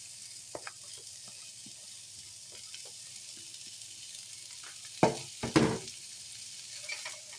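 Sliced onions sizzling in hot cooking oil in a skillet, a steady hiss with small stirring clicks. Two loud sharp knocks come about five seconds in, half a second apart.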